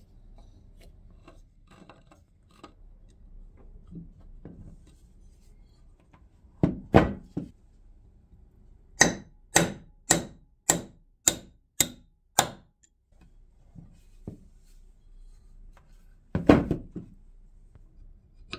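Metal tools working on a cast-iron gearbox housing: light handling clatter and a few knocks, then seven sharp hammer blows about half a second apart on a tool set in the housing, and one more heavy knock near the end.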